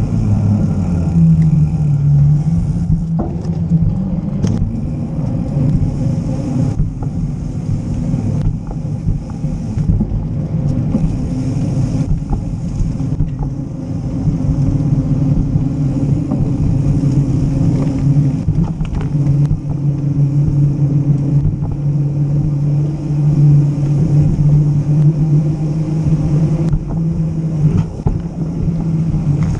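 Rolling noise of a mountain bike on pavement: the steady hum of the tyres, whose pitch drifts slightly with speed, under wind rumbling on a bike-mounted camera's microphone. A few short knocks come from bumps in the path.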